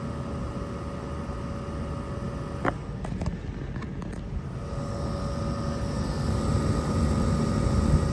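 Inverter window air conditioner running, a steady fan and compressor hum with two faint steady tones. A few light clicks come about three seconds in, and the unit grows louder over the last few seconds as its speed ramps.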